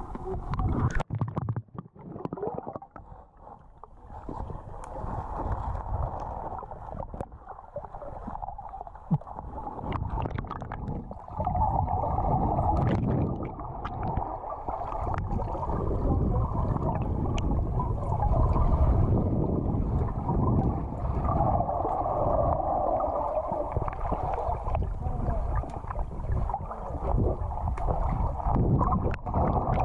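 Muffled underwater water noise picked up through a GoPro's microphone held underwater: dull rushing and gurgling as the swimmer moves, with scattered small clicks and knocks.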